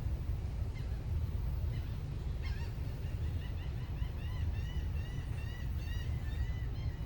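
Birds calling in a quick run of short, arched calls, starting about two and a half seconds in and running on, over a steady low rumble.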